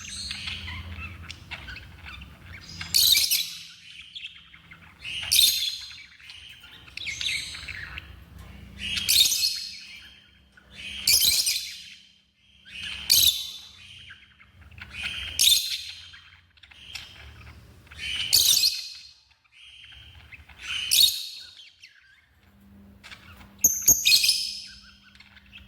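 Lovebirds giving loud, shrill chirping calls in repeated bursts, about one every two seconds.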